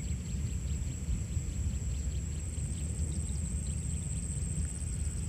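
Outdoor background with no distinct event: a steady low rumble, a faint high steady whine and scattered light ticks.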